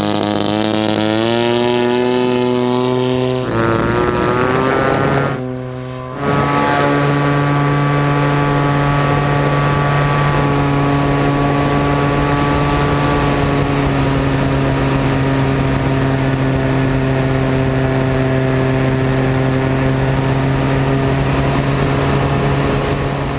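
Petrol engine of a radio-controlled Piper L-4 Grasshopper model plane opened up to full throttle, its pitch rising over the first few seconds. After a brief drop about six seconds in, it holds a steady high drone.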